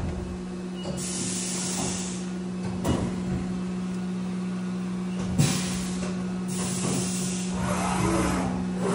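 Haas vertical CNC mill running with its spindle holding a steady hum, coolant spraying in hissing bursts against the enclosure. A couple of sharp clicks come from the cut.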